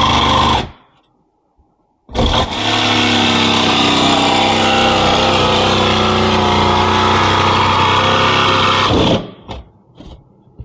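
Electric jigsaw sawing through a motorhome's insulated roof to cut the opening for a roof air conditioner. It runs briefly and stops for over a second, then starts again and saws steadily for about seven seconds before stopping. A few light clicks and rustles of handling follow near the end.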